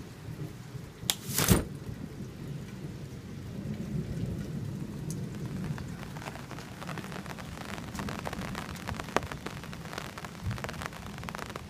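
Rain falling on an umbrella canopy: a steady patter of many fine drop taps, which grows denser in the second half. Two sharp knocks come about a second and a half in.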